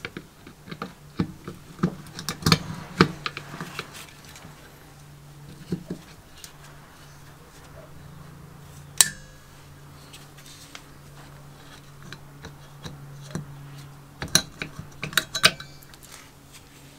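Metal clinks and scrapes of a coiled steel recoil starter spring and locking pliers knocking against the rusty sheet-metal pull-starter housing of a Robin EC10 engine as the spring is worked loose. The clinks come in two clusters, with one sharp ringing clink about nine seconds in, over a low steady hum.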